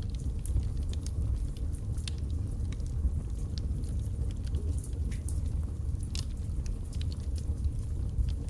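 Wood fire burning in a fireplace: a steady low rumble of flames with frequent irregular sharp crackles and pops from the logs.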